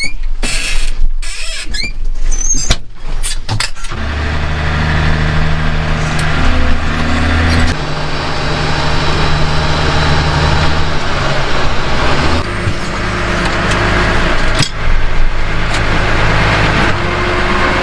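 Tractor engine running steadily, its pitch stepping to a new speed a couple of times as it works. It is preceded by a few seconds of choppy, broken sounds.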